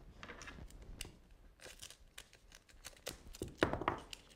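Duct tape being worked by hand: short crinkling and peeling rustles of the tape with small scissor snips and clicks, scattered and irregular, the loudest about three and a half seconds in.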